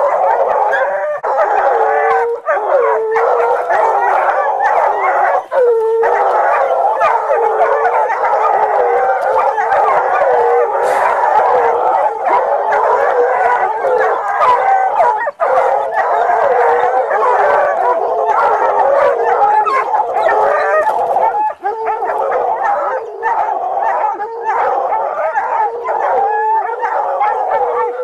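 Several hunting hounds baying and howling without pause at a big cat they have cornered, their voices overlapping.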